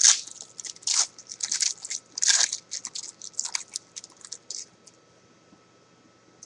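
Foil wrapper of a football trading-card pack being torn open and crinkled, a run of sharp crackling rustles that stops a little under five seconds in.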